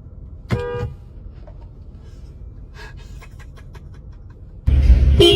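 A short car-horn beep about half a second in. A loud low rumble cuts in near the end.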